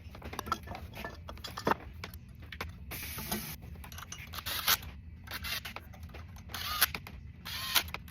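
Hand tools and metal parts being handled while an oil cooler is fitted to the engine: scattered light clicks and scrapes, with a few short rustles.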